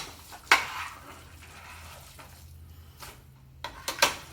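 A cooking utensil knocking and scraping in a frying pan: a sharp knock about half a second in, then a few more clicks near the end. A steady low hum runs underneath.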